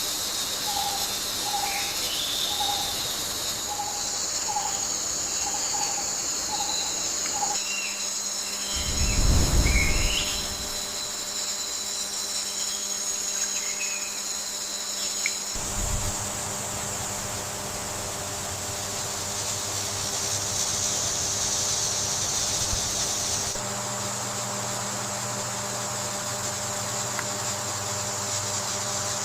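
Outdoor wildlife ambience: steady high-pitched insect trilling with bird chirps. For the first several seconds a short call repeats about twice a second. A low rumble comes around ten seconds in, and the background changes character about halfway through.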